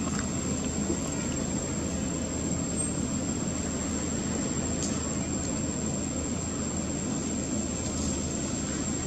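Steady low outdoor rumble, like distant engine noise or wind, with a constant thin high whine over it and no distinct events.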